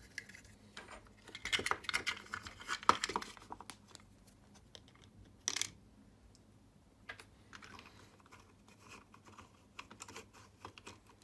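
Plastic emergency stop switch being reassembled by hand, with irregular small clicks and rattles. They come in a cluster over the first few seconds, then one louder click about five and a half seconds in, then fainter clicking.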